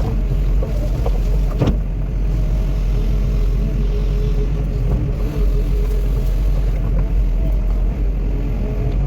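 Cat 316E excavator's diesel engine running steadily, a low rumble with a faint whine on top, and a single sharp knock about a second and a half in.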